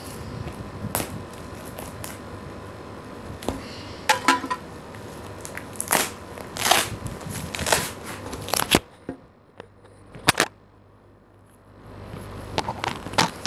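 Clear plastic wrapping on a bedsheet pack crackling and crinkling in a run of sharp crackles as it is cut with scissors and pulled open. It goes quieter for a few seconds near the end, then rustles softly as the folded sheets are drawn out.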